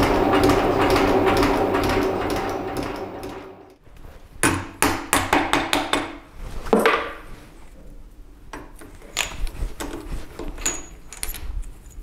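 Metal shaper cutting a small steel bar, running steadily, then running down and stopping about four seconds in. After that comes a string of sharp knocks and clanks: a mallet striking the shaper's machine vise while the vise handle is worked to free the workpiece.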